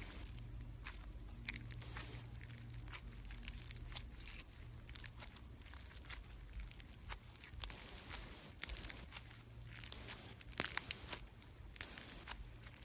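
Periwinkle bead slime squeezed and pressed in the hand, its small embedded beads giving irregular crackling, popping clicks, busiest in the second half. A steady low hum runs underneath.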